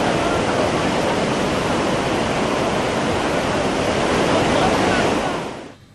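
Floodwater released through the open crest gates of the Krishnaraja Sagar (KRS) dam, rushing steadily down the rocky spillway. The release of surplus water from a nearly full reservoir fades out near the end.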